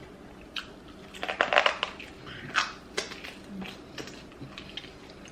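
Close-up mouth eating sounds: chewing and smacking of fufu and egusi soup, heard as a cluster of wet clicks and crackles about a second in, then a few more single clicks.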